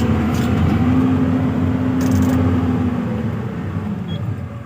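Hyundai 215 excavator's diesel engine running under hydraulic load as the machine is lifted, a steady hum that rises slightly about a second in and eases off near the end.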